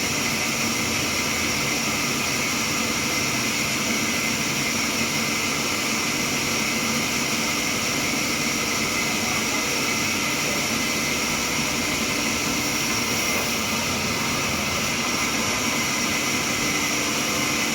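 Sawmill saw running steadily: a continuous, even, high-pitched mechanical hiss whose level stays the same throughout.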